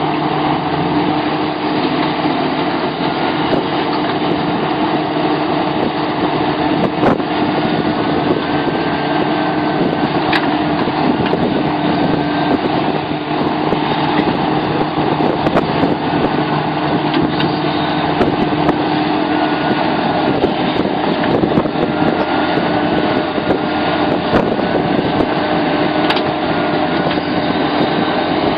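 Sumitomo SH700LHD-5 excavator running steadily, its engine giving a constant drone with a steady low hum and a faint wavering higher whine, with a few sharp knocks scattered through.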